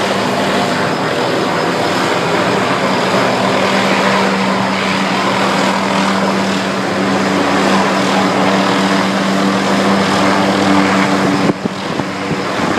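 A helicopter running, a loud steady drone of engine and rotors with a constant hum. The sound drops and changes suddenly near the end.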